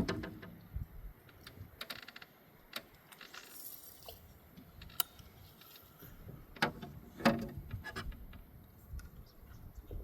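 Fishing gear handled in a boat: scattered light clicks and rattles, with a few soft knocks near the start and again a little past halfway.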